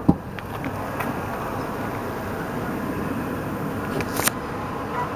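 Steady running noise of a vehicle, with a few sharp clicks about a second in and near the end.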